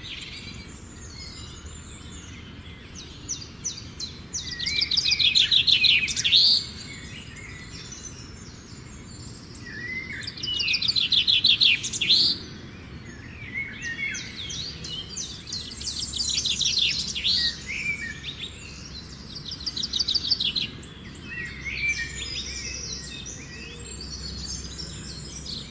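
Birds singing: phrases of fast, rapidly repeated trill notes and short chirps, several louder phrases coming a few seconds apart, over a faint steady background noise.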